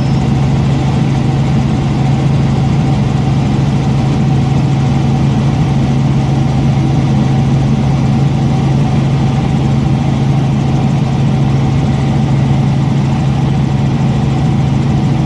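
Robinson R44 Raven I helicopter in flight, its six-cylinder Lycoming piston engine and rotors making a loud, steady hum that does not change, heard from inside the cabin.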